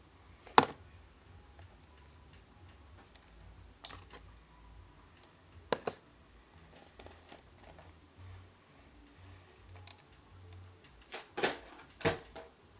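Sparse sharp clicks and taps of small objects being handled, loudest about half a second in, with a quick double click midway and a cluster of clicks near the end.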